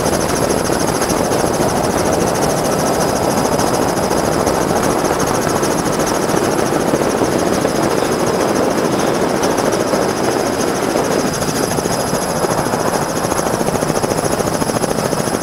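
Helicopter flying, with a steady, loud rotor and engine noise and a thin high whine on top that holds without rising or falling.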